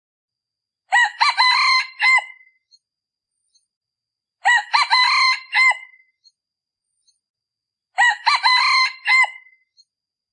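Male decoy junglefowl rooster crowing three times, evenly spaced about three and a half seconds apart, with short clipped crows. This is the call used to lure wild red junglefowl.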